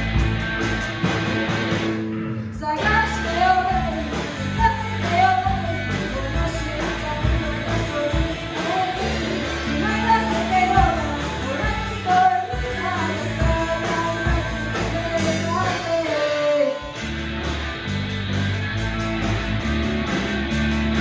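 Live rock band playing: a woman singing into a microphone over electric guitars and a drum kit. The singing stops about three-quarters of the way through, and the band plays on.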